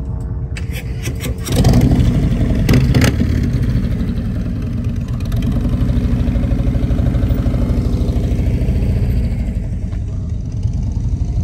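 Motorcycle engine running nearby, revving up suddenly about a second and a half in, then settling back to a steady idle.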